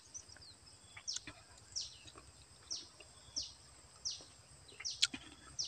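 A bird calling over and over: a short, high note that falls steeply in pitch, repeated steadily about every two-thirds of a second.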